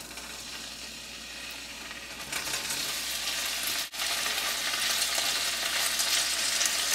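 Paneer cubes shallow-frying in hot oil in a stainless steel saucepan: a steady sizzle that grows louder about two seconds in as more cubes go into the oil, with a momentary break a little past the middle.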